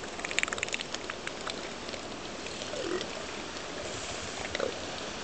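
Steady hiss of surf and wind, with a patter of small clicks about half a second in. Two brief, low, falling calls from northern elephant seals come about three seconds in and near the end.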